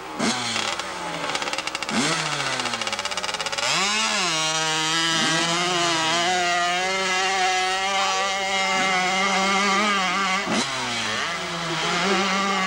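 Hillclimb dirt-bike engine blipping its throttle twice at the foot of the hill, then launching about four seconds in and running at high revs as it climbs the slope. The revs dip and pick up again briefly about ten seconds in.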